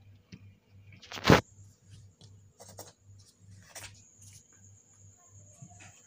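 Domestic cat grooming itself, with a string of short, soft licking and rustling strokes. A sudden loud brief noise comes a little over a second in.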